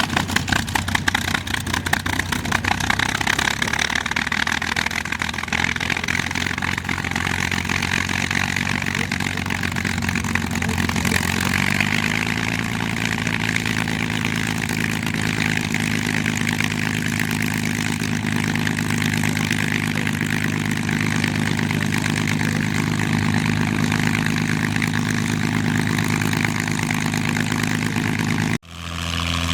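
P-51D Mustang's Packard-built Merlin V-12 running steadily, its pitch stepping up slightly about twelve seconds in as the rpm rises. The sound briefly drops out near the end, then the engine carries on.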